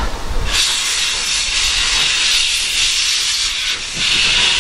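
Small steam tank locomotive venting steam in a steady hiss that starts about half a second in and eases briefly near the end.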